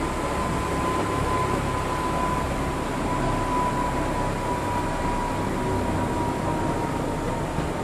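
Tramway du Mont-Blanc electric rack-railway train running uphill, heard from on board: steady running noise with a high, steady whine that sags slightly near the end.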